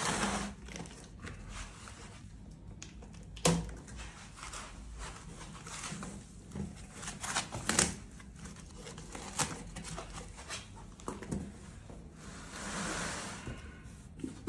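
Cardboard TV box being opened by hand: scattered knocks, scrapes and rustles of the cardboard and its packing, with a sharp knock a few seconds in and a longer rustle near the end.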